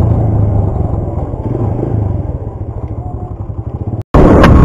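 Motorcycle riding noise, engine hum and wind rumble, picked up by a lapel mic inside a helmet with the visor open. It slowly fades, drops out abruptly about four seconds in, and comes back much louder.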